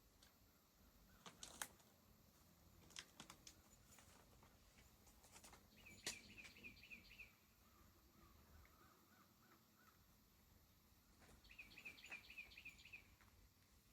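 Quiet natural ambience with birds calling: a quick series of high chirps about six seconds in and again near the end, with softer lower chirps between them. A few faint clicks are also heard.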